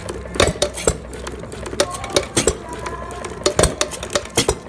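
Blacksmith engine running, a string of sharp metallic clicks and clanks at uneven spacing over a low steady hum.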